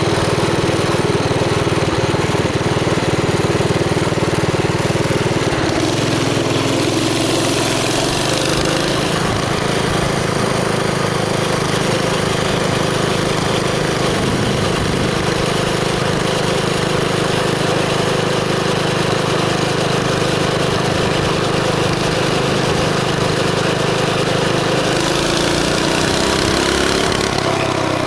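Chinese mini bike's small single-cylinder engine, fitted with a homemade aftermarket header, running steadily while riding, its pitch shifting with the throttle about a third of the way in and again near the end.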